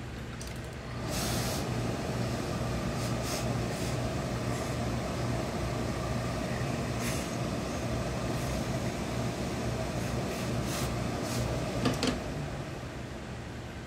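Hose-fed industrial steam iron pressing a wool trouser waistband: short hisses of released steam, about five of them, over a steady rushing noise with a low hum. The rushing starts about a second in and stops near the end.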